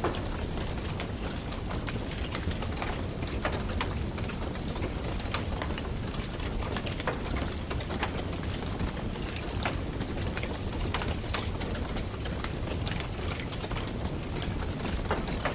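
Wood campfire crackling: irregular sharp pops and snaps over a steady low rush of burning.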